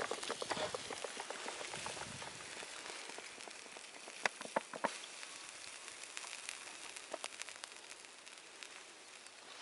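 Small campfire's embers hissing and crackling as they are doused with water, with dense crackling at first and a few sharp pops about four and five seconds in.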